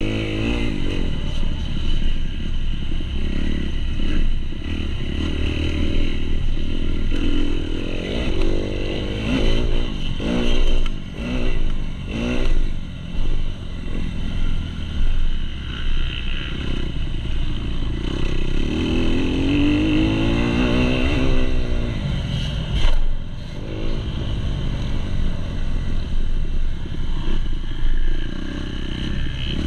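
2019 Kawasaki KX250 four-stroke single-cylinder motocross engine heard close from onboard as the bike is ridden hard, revs repeatedly climbing and dropping through gear changes and throttle chops, with chassis clatter. Several quick rev climbs come about a third of the way in, a long climbing rev just past the middle, and a single sharp knock soon after it.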